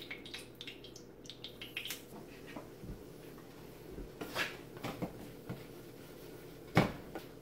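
Flour being stirred into oil in a frying pan with a spatula to start a roux: quiet scraping with a few light knocks of the spatula against the pan, the sharpest near the end.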